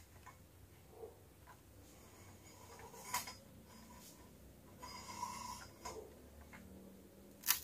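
Faint handling noise: a few soft clicks and a brief rustle, quiet throughout.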